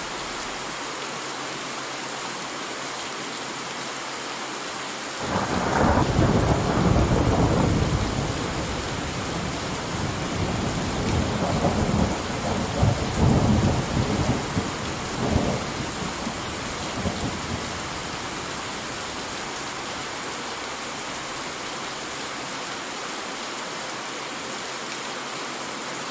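Thunderstorm: steady rain hissing, with a thunderclap about five seconds in that rolls and rumbles in several surges for about twelve seconds before dying away.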